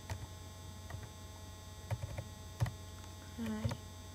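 Steady electrical mains hum, with a few faint clicks scattered through it and a brief voice sound near the end.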